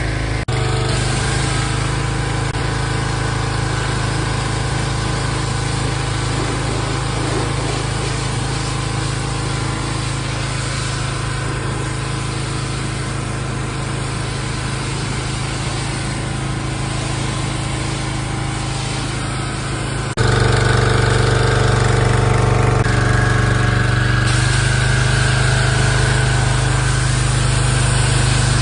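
Pressure washer's small engine running steadily. About twenty seconds in the sound steps up louder and its pitch changes.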